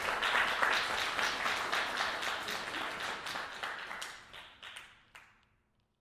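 Audience applauding: many hands clapping together, thinning out over the last couple of seconds to a few scattered claps before stopping.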